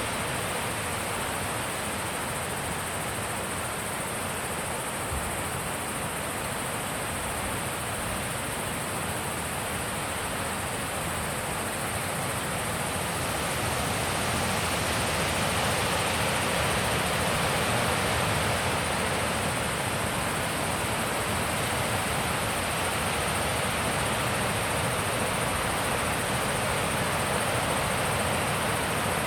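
Wind blowing steadily, swelling a little about halfway through.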